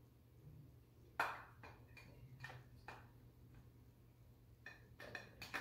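A spoon knocking against a container while scooping out spinach-artichoke mixture: one sharp clink about a second in, then a string of lighter taps and a quick cluster of them near the end.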